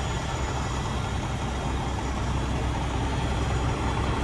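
Detroit Diesel Series 60 engine of a Freightliner Columbia truck idling with a steady low rumble.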